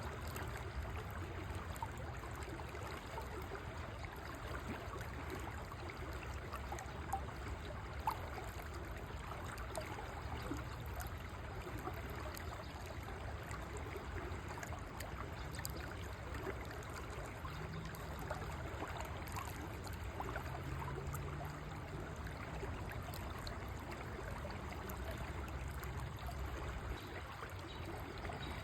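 River water flowing steadily, a continuous babbling, trickling rush.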